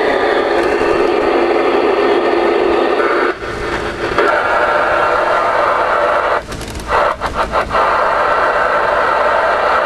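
Galaxy DX-979 CB radio receiving steady band static through its speaker. The hiss drops out briefly once, then again in several quick breaks, as the channel knob is turned.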